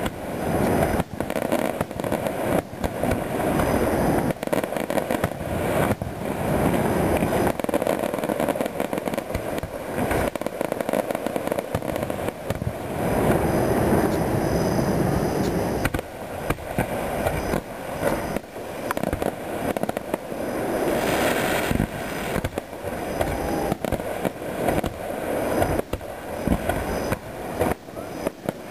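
Aerial fireworks display: shells bursting in a rapid, near-continuous string of bangs and crackles. A brief hissing burst stands out a little after twenty seconds.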